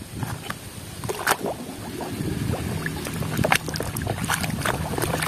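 Water sloshing and splashing in a plastic tub as a muddy toy is scrubbed by hand with a brush, with scattered sharp clicks of plastic knocking.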